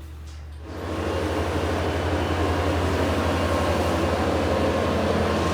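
A machine running steadily and loudly, with a pulsing low hum and a few steady tones, coming in about a second in.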